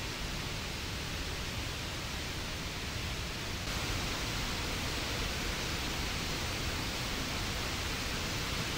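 Waterfall in flood: swollen, muddy water rushing over the falls in a steady, even noise. The rush steps up a little louder about four seconds in.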